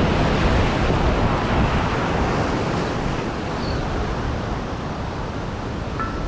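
Wind buffeting the microphone over the wash of surf against a rock jetty, a steady rushing noise that eases slightly partway through.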